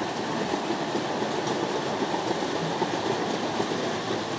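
Model trains running on an exhibition layout: a steady rumbling whirr with a few faint ticks.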